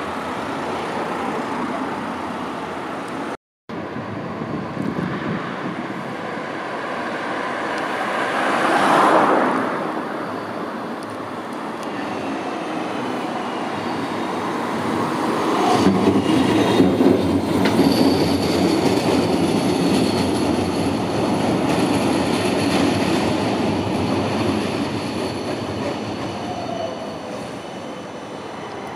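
Siemens Combino light-rail trams running on street track: a steady rumble of wheels on rail swells about nine seconds in, gets louder again from about sixteen seconds, and from about eighteen seconds a high, steady squeal holds over it.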